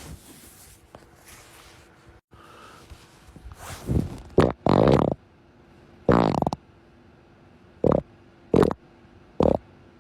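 A series of farts: several longer, buzzing ones in the middle, then three short ones about a second apart near the end.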